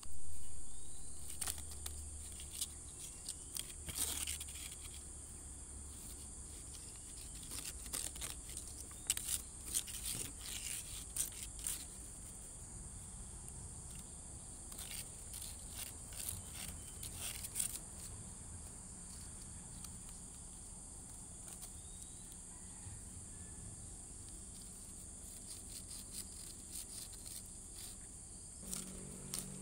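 Steady high-pitched chirring of insects, with intermittent rustling and crackling of dry palm fronds as a cat scrabbles in them, busiest in the first half.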